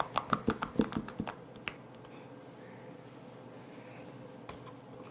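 Slime being squished and pressed by hand, making a quick run of sharp clicks and pops for the first couple of seconds, then only faint handling with a couple of single clicks later on.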